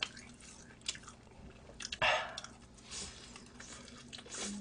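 Chewing and biting of honey-glazed fried chicken, with scattered short wet clicks and crackles from the mouth. One louder, longer noisy burst comes about two seconds in.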